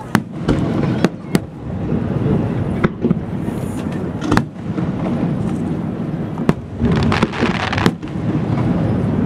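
Aerial firework shells bursting in the sky: about eight sharp booms at irregular intervals, some close together and some a couple of seconds apart, over a steady background rumble.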